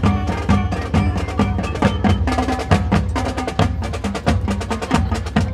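High school marching band playing, with drums and front-ensemble mallet keyboards striking rapidly over sustained band tones.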